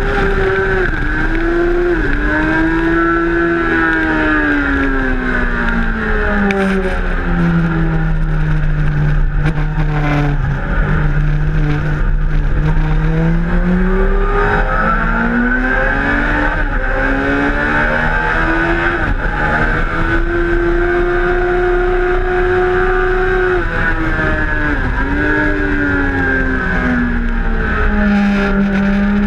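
Suzuki GSX-R1000's inline-four engine heard from the rider's seat at track pace: the revs climb, fall away for a long stretch about a third of the way in, climb again in steps as the gears go up, then drop a couple of times near the end. A steady rush of wind over the fairing runs under the engine.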